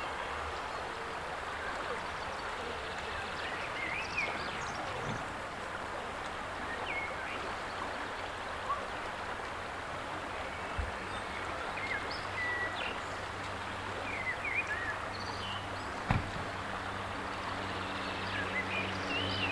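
River water running steadily past a gravel bank, with small birds chirping now and then. A low steady motor hum comes in about halfway and grows near the end, and there is one sharp click about three-quarters of the way through.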